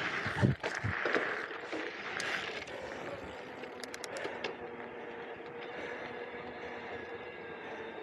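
Electric mountain bike riding over a gravel BMX track: tyre and wind noise, with a couple of heavy knocks from the bike hitting a bump about half a second in. Around four seconds in there is a brief run of clicks, typical of a freewheel ratcheting while coasting, and after that the rolling goes quieter and steadier as the tyres move onto asphalt.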